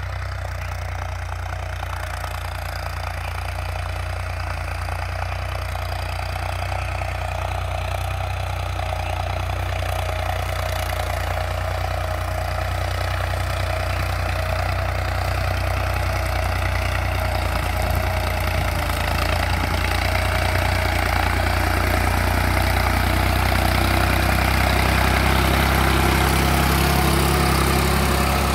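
Diesel tractor engine running steadily while it pulls a disc harrow through a dense green manure crop, growing gradually louder as it comes closer.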